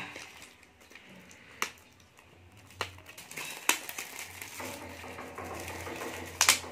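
Foil-lined paper wrapper crinkling and tearing as it is peeled open by hand, with several sharp crackles, the loudest near the end.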